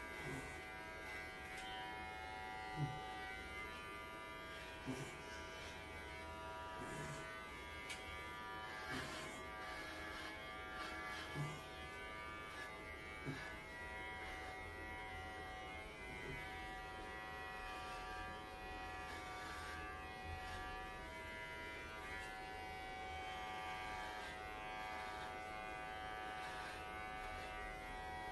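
Cordless electric pet clippers running with a steady buzzing hum as they shave a Welsh Corgi's coat down short; the pitch shifts slightly now and then. A few short soft knocks come in the first half.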